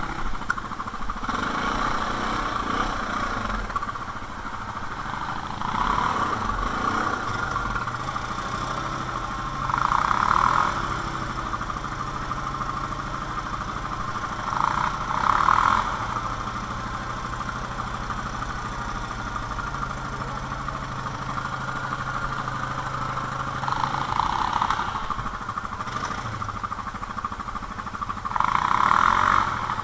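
ATV (quad bike) engine running steadily at low revs, with several louder swells of one to two seconds each as the throttle is worked.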